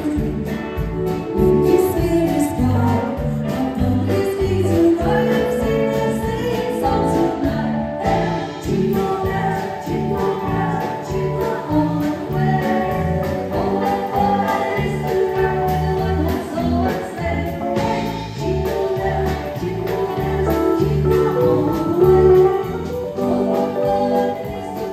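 Live band playing a song with a singer, keyboard, bass and drums over a steady beat.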